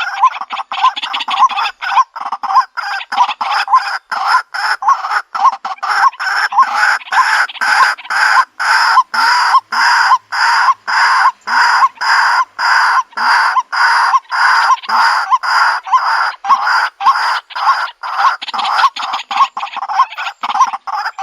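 White-breasted waterhen calling: one loud call note repeated over and over at a steady rhythm, about two to three calls a second, without a break.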